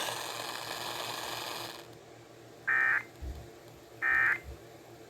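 Emergency Alert System end-of-message (EOM) SAME tones: two short, loud bursts of warbling digital data about 1.3 seconds apart, marking the end of the alert. Before them, a hiss dies away within the first two seconds.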